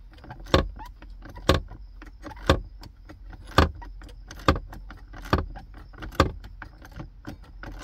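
Small ratchet and socket clicking as it is worked back and forth to back out an 8 mm screw: a sharp click about once a second, with lighter ticks between.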